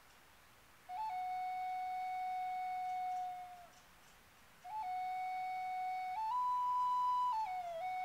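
A flute played slowly: a long held note begins about a second in with a quick grace note from just above and fades out, and after a short pause a second phrase starts the same way, steps up to a higher held note and then steps back down near the end.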